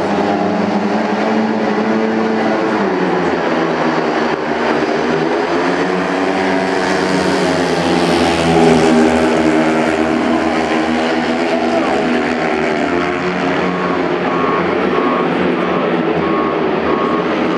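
Four 500 cc single-cylinder methanol speedway bikes revving at the start and then racing round the track, the engine note rising and falling. A repeating beep starts near the end.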